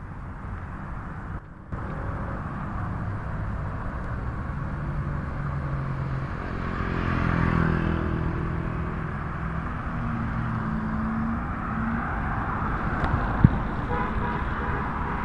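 Street traffic: motor vehicles running by, with short horn toots near the end. A single sharp knock comes about two seconds before the end.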